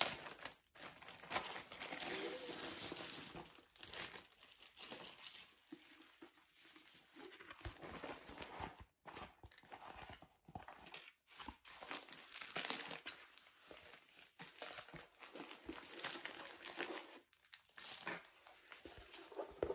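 Plastic wrapping crinkling and rustling as it is pulled off a rolled diamond painting canvas, followed by the paper-covered roll rustling as it is handled. The rustling comes in irregular spells with a few brief pauses.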